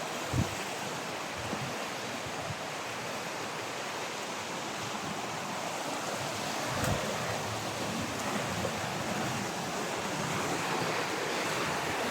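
River water flowing, a steady rushing hiss. Two short low thumps, one about half a second in and one near seven seconds.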